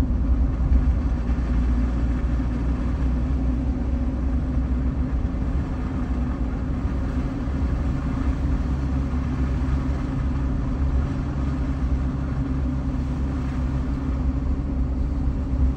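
Steady low rumble of a vehicle driving on a snowy road, engine and tyre noise heard from inside the cabin.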